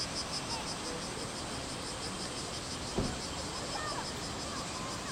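Outdoor ambience over a steady noisy background: an insect calls in a high, even pulsing rhythm of about four to five pulses a second, with faint distant shouts and a single thud about three seconds in.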